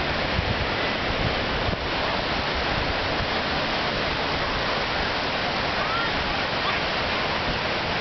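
Steady rush of ocean surf breaking on a sandy beach, with wind buffeting the microphone.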